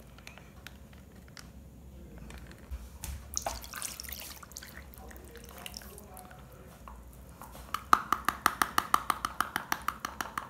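Milk poured from a measuring cup into a mixing bowl of dry cake ingredients, heard as a brief liquid splash. Near the end comes a quick, even run of light clicks at the bowl, about ten a second.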